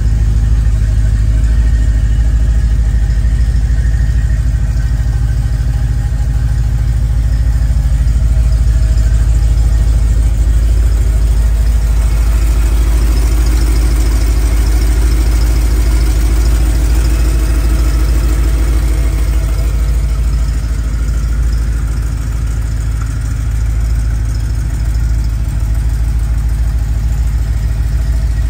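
The V8 engine of a 1953 Ford F100 pickup idling steadily.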